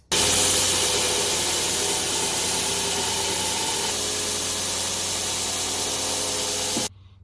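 Electric grinder running and grinding the new steel multitool blade blank down to thickness, a steady loud grinding noise over a motor hum that starts and cuts off suddenly.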